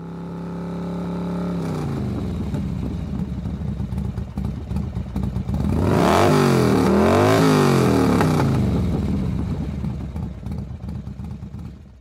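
Motorcycle engine idling steadily, then revved up and down in a few quick blips through the middle, and fading out near the end.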